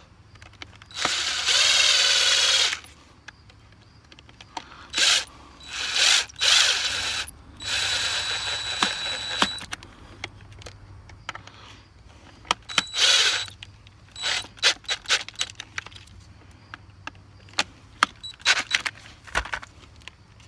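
Cordless drill-driver running in several short bursts of one to two seconds as it drives in the screws that fasten a GFCI receptacle into its electrical box. Sharp clicks come between and after the bursts.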